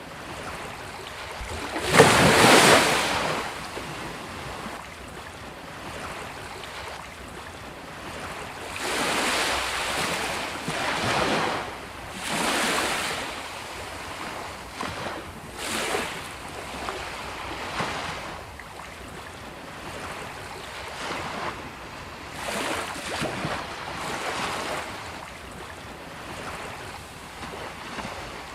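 Sea waves breaking on a beach: a steady wash of surf with repeated swells as each wave crashes, the loudest and sharpest about two seconds in, then several softer breaks.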